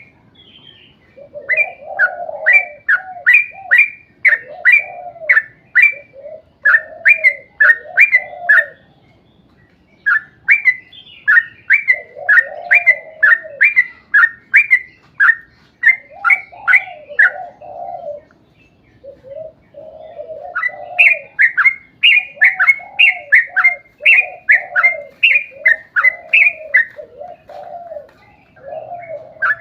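Yellow-vented bulbul singing a long, rapid run of quick falling notes, several a second, over lower warbling notes. The song comes in bouts with short pauses about a third and two thirds of the way through.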